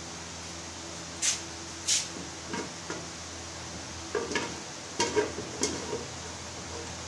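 Kitchen sounds at a covered frying pan on a gas stove: a scattering of short, sharp clicks and taps over a steady low hum.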